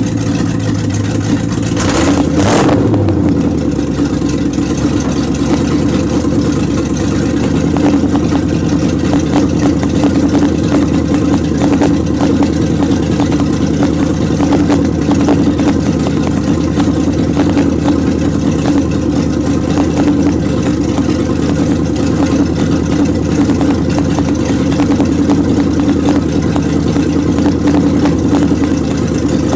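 1929 Chrysler engine running steadily while warming up, with a brief sharp noise about two seconds in, after which the running note changes slightly.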